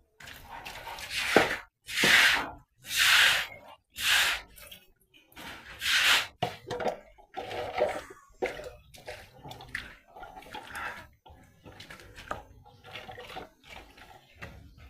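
Standing water being cleared off a floor by hand: a run of loud splashes about once a second, then smaller sloshing and dripping sounds.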